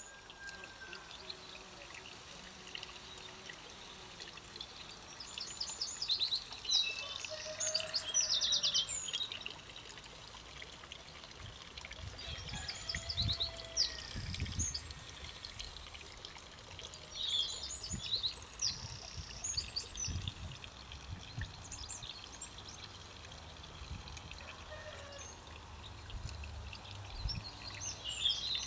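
Songbirds singing in a garden: several phrases of quick, repeated high notes and trills come and go, over a faint steady background, with low rumbles about halfway through.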